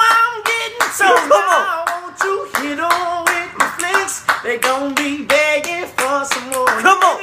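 Men singing a cappella in a small room while clapping a beat, their voices gliding through a melody over frequent sharp hand claps.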